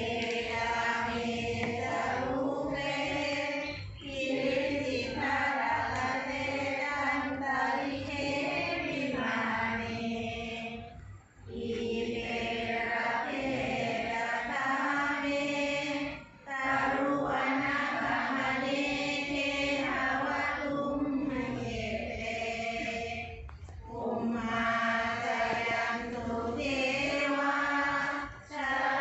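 A group of voices chanting Buddhist prayers in unison, holding a steady recitation tone in long phrases. The phrases are broken by brief pauses for breath every five to seven seconds.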